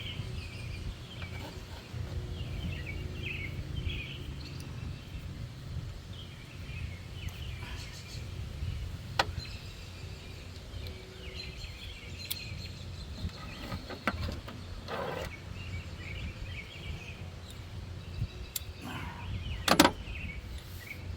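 Outdoor background: a steady low rumble with birds chirping, and scattered clicks and knocks now and then. The loudest is a sharp knock near the end.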